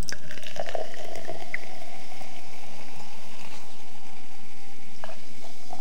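Lemonade being poured into a glass: a steady pour with a fizzing hiss, and a light click about five seconds in.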